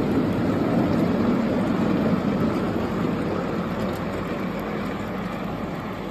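Ride-on miniature steam train with a string of passenger coaches running past on the track, its noise fading as it pulls away.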